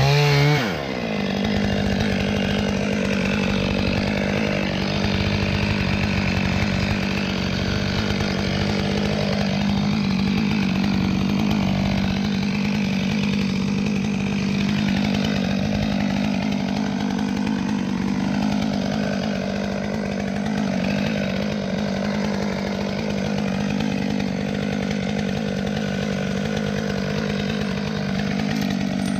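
Stihl chainsaw revving high for a moment at the start as the cut finishes, then dropping to a steady idle that runs on unchanged.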